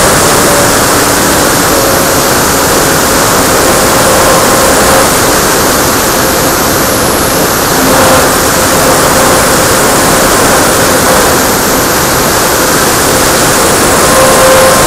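Loud steady rush of wind over an RC model plane's onboard camera in flight, with the faint whine of its electric motor and propeller underneath.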